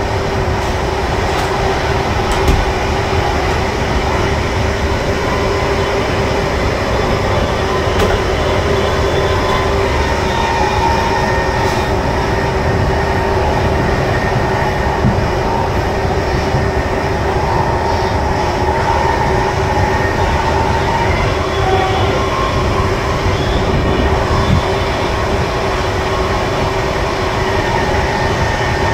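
Intercity passenger coach running at speed, heard from inside the train's last carriage: a steady rumble of wheels on rails with a constant hum, broken by a few brief clicks.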